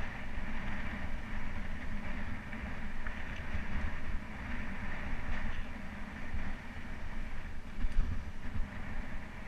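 Mountain bike rolling fast over a dirt singletrack: a steady rumble of tyres and frame, with wind noise on the mounted camera's microphone.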